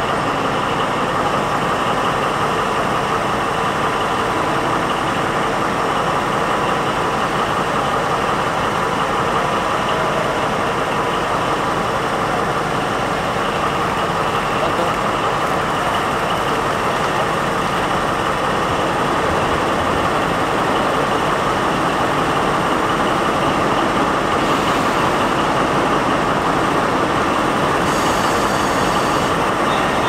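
MTU 4000 diesel engine of a DB class 218 diesel-hydraulic locomotive running steadily while the locomotive stands, a constant engine sound with a steady whine in it.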